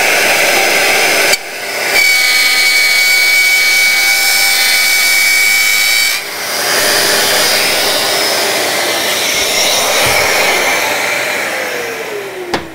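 DeWalt D26204K compact router running at full speed, routing a slot in a plywood board, with two brief dips in the sound. Near the end it is switched off and its whine falls in pitch and fades as the motor winds down.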